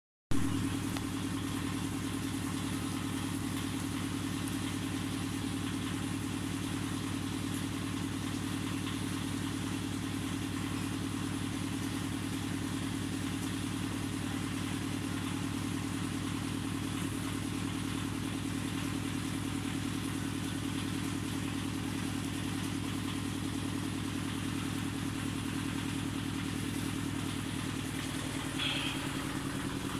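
A motor running steadily at an even pitch, a constant low hum. A brief high chirp comes near the end.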